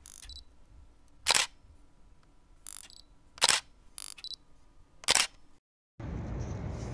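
Camera shutter sound effects: a run of shutter clicks, three loud ones about two seconds apart with fainter ones between them. A brief dead silence follows, then steady outdoor background noise near the end.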